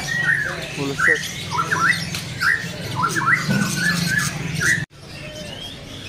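Caged songbirds giving short, repeated chirping calls, about a dozen notes in a row, which stop abruptly about five seconds in.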